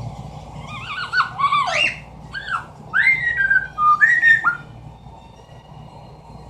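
Amazon parrot whistling a run of short notes that bend up and down in pitch, one of them sliding down, for about four seconds before stopping.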